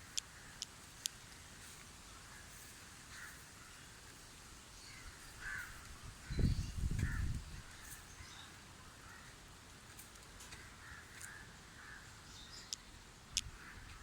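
Crows cawing now and then, faint, over a quiet rural background, with a brief low rumble about six seconds in and a few sharp clicks.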